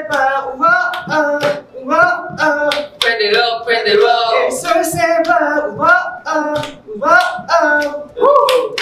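Several young men singing together without accompaniment, with hand claps throughout.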